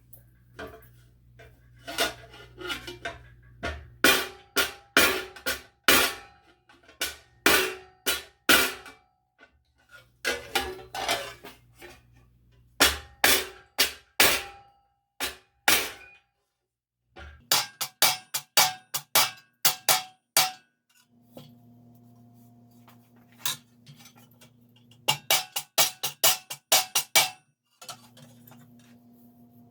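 Leather hammer striking steel armour plate over a T-stake, in runs of quick blows with short pauses, the plate ringing briefly after some strikes. The blows are knocking down high points to take out dents and straighten the plate.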